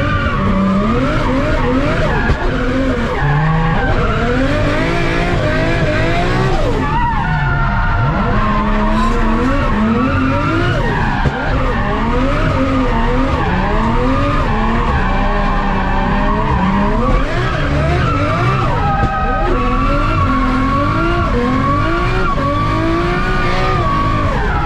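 Nissan Skyline R33 drift car engine, on individual throttle bodies, revving up and down constantly under hard driving, with a deep drop in revs about seven seconds in. Tyre skid noise runs underneath.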